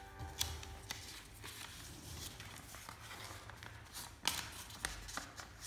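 Sheet of paper being folded and creased by hand on a wooden tabletop: faint rustling with scattered sharp taps and scrapes, the sharpest a little after four seconds in.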